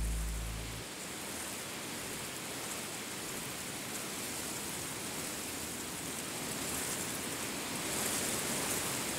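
Acoustic guitar music fading out in the first second, then a steady, even hiss of outdoor ambience that swells slightly near the end.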